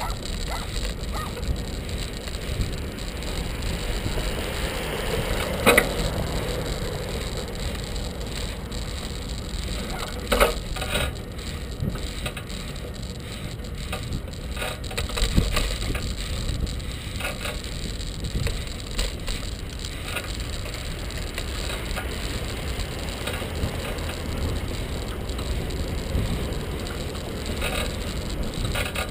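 Bicycle on the move: a steady low rumble of wind and rolling tyres, with the bike and its rear dog carrier rattling and a few sharp knocks over bumps about six, ten and fifteen seconds in.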